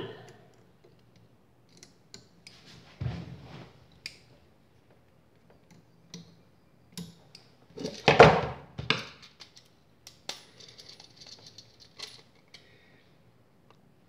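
Scattered small metallic clicks, clinks and rustles of old wires and a switch being handled in a metal electrical box, with a louder burst of handling noise about eight seconds in.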